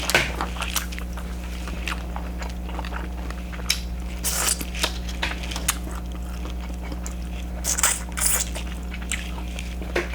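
Close-miked eating of a sauce-dipped shrimp: chewing with wet smacks and clicks coming irregularly over a steady low hum.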